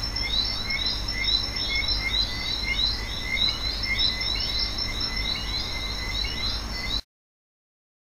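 A chorus of short chirping calls from small calling animals, several notes a second, high and thin, over a low rumble. It cuts off abruptly about seven seconds in.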